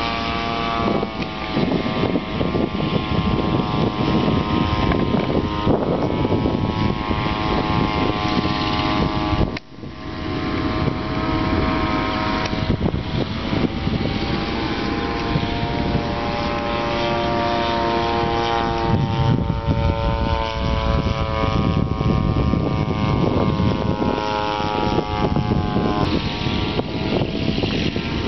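RCGF 60cc single-cylinder two-stroke gas engine of a radio-controlled P-51 Mustang model running in flight. It is a steady drone whose pitch drifts slowly up and down as the plane flies overhead. The sound drops out briefly about ten seconds in.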